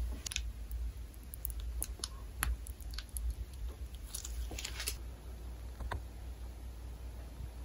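Food-prep handling noises: scattered small clicks and crinkles as sliced red onion is laid on a pita, then a cluster of sputtering hisses about four to five seconds in as white sauce is squeezed from a plastic bag over the chicken, over a steady low hum.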